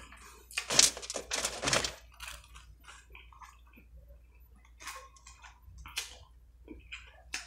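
Close chewing of crispy fried food, several crunchy strokes in the first two seconds, then quieter, scattered mouth clicks and small smacks.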